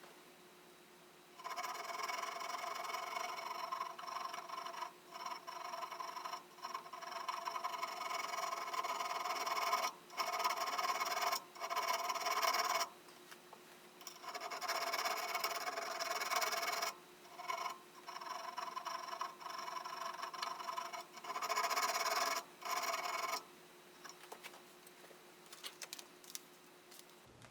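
Coarse-grit diamond barrette file rasping back and forth on the steel of a wood auger, in several runs of strokes separated by short pauses, with a steady ringing under the strokes. The filing stops a few seconds before the end, leaving a few faint clicks.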